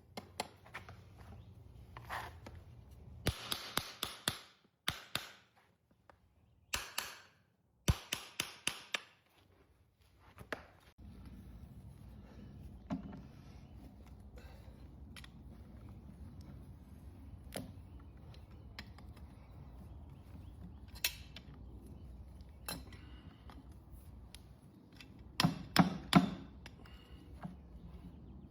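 Hoof-trimming tools cutting into an overgrown horse hoof: clusters of sharp snaps and cracks, the loudest cluster near the end. A low steady hum runs underneath from about a third of the way in.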